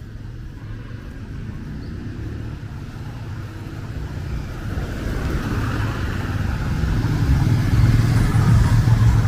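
A motor vehicle's engine and tyres on wet road, growing steadily louder as it approaches and passes close by near the end.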